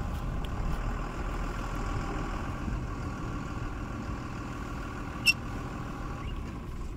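An engine running steadily at idle, fading near the end, with one sharp click about five seconds in.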